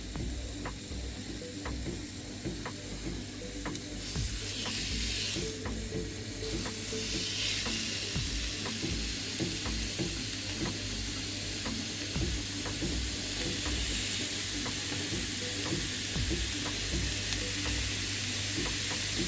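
Pork loin steaks sizzling on a hot electric grill plate, with the sizzle growing louder about four seconds in and holding steady after that.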